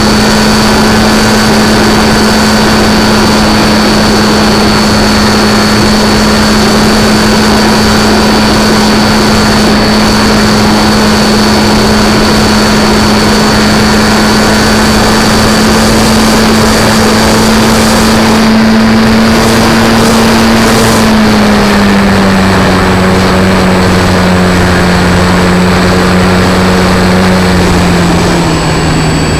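Radio-controlled model airplane's motor and propeller running steadily, heard from a camera on board, over a constant rush of air. The pitch drops a little about two-thirds of the way through and sinks further near the end as the throttle is eased.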